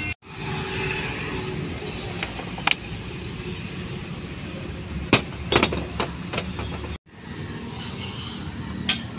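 Sharp metal clinks of dismantled starter-motor parts being handled and set down on a workbench, a few scattered and a cluster about five to six seconds in, over a steady background of outdoor noise. The sound drops out completely for a moment twice.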